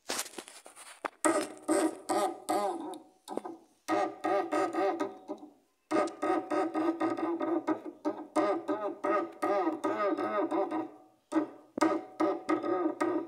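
Worn front stabilizer bar end link on a Chevrolet Onix being rocked back and forth by hand, giving repeated drawn-out pitched squeaks with a few knocks between strokes. The mechanic blames this worn link for the knocking heard when the steering wheel is turned.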